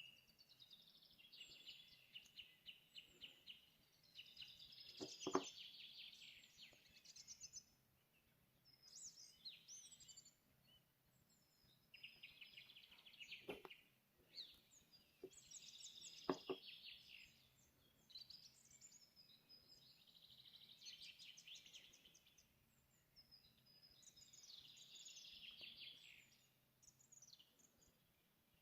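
A small songbird singing repeated short trilled phrases, each a second or two long, with brief pauses between them. A few sharp clicks or knocks come through, the loudest about five seconds in and again about sixteen seconds in.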